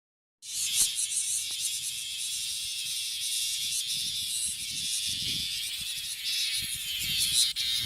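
Male bear cicada (Cryptotympana facialis) calling: a loud, dense, steady buzzing hiss that starts abruptly about half a second in.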